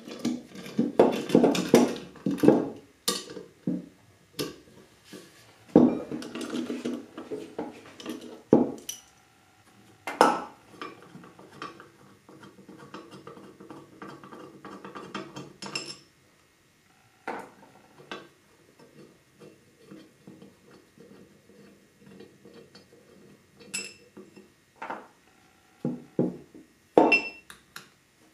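Metal clinks and clicks as the cast-iron parts of an antique American Scale Company No. 204 woodworking vise are taken apart with a small socket ratchet and handled on a wooden workbench. The clatter is busiest in the first few seconds and again about six seconds in, then thins to scattered clicks and knocks.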